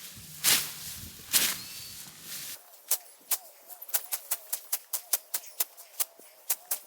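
Scythe swishing through standing grass, two strokes about a second apart. About two and a half seconds in, this cuts to a quick, even ticking beat with a faint wavering tune: background music.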